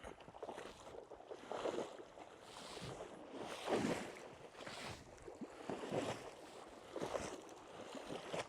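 MSR Denali Ascent Evo snowshoes crunching and swishing through snow, about one step a second.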